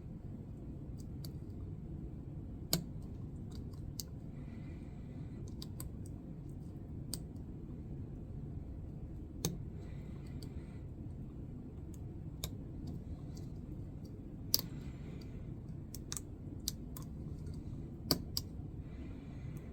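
Irregular sharp clicks of a lock pick and tension wrench working the pin stack of a Master Lock pin-tumbler padlock, as the pins set and drop. A few clicks stand out louder than the rest.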